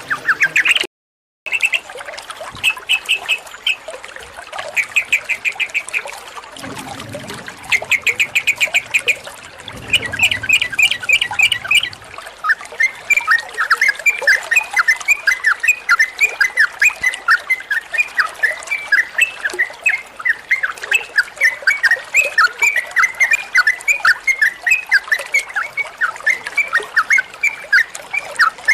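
Yellow-vented bulbul (trucukan) singing: short bursts of fast repeated notes at first, then from about halfway a long unbroken run of quick, sharp chirping notes, several a second. The sound drops out briefly about a second in.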